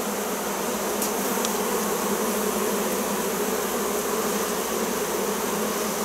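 A huge swarm of honey bees buzzing, a steady dense hum of thousands of wings.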